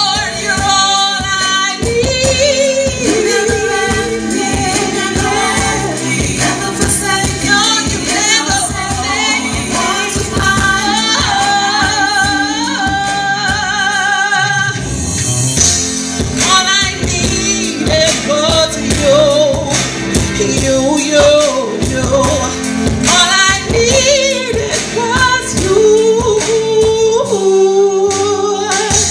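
A woman singing a gospel song into a handheld microphone, amplified, over an instrumental backing with a steady beat and sustained low notes.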